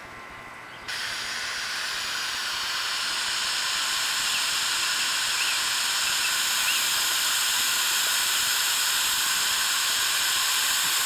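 Water spraying as a fine mist, a steady hiss that starts suddenly about a second in and gets a little louder over the next few seconds.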